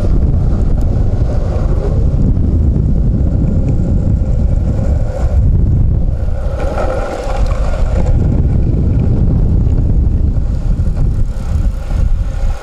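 Skate wheels rolling over an asphalt road, a steady rumble, with wind buffeting the microphone.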